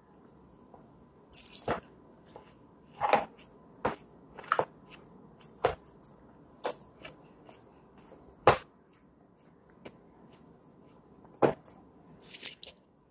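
Irregular light knocks and clicks of plastic Play-Doh tubs and lids handled on a plastic high-chair tray, about eight in all, with a couple of brief rustling scrapes.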